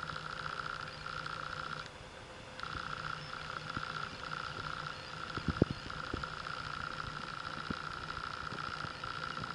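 Big Thunder 2-inch colour smoke ball hissing as it pours out smoke, the hiss dropping out for a moment about two seconds in. A sharp thump about halfway through.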